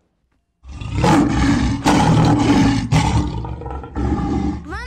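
Lion roaring: a run of loud, rough roars, about one a second, from the 3D lion's recorded sound.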